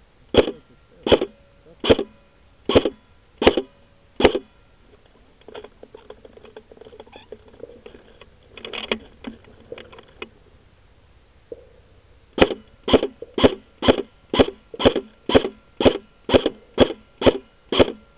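Airsoft rifle firing single shots close to the camera: six shots about three-quarters of a second apart, then rustling and handling of the rifle, then a faster string of about thirteen shots, roughly two a second.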